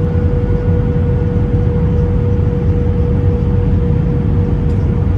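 Cabin noise inside an Airbus A319 airliner on landing approach: a steady, loud low rumble of engines and airflow with a steady mid-pitched tone over it.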